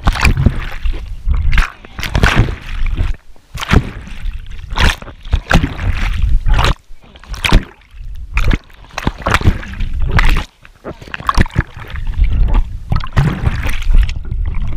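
River water splashing and sloshing around an action camera at and below the surface beside a swimmer, in irregular splashes about every half second to second over a low, muffled rumble.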